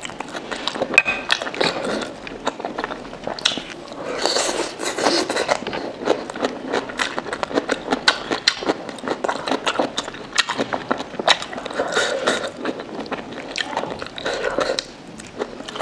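Mouth sounds of a person eating momo dumplings in broth close to the microphone: wet chewing and lip smacks, a steady run of small clicks.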